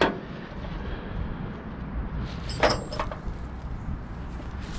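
A few short clicks and knocks of bolts and hand tools being handled and set down: one right at the start and two close together about two and a half seconds in, over a low steady background rumble.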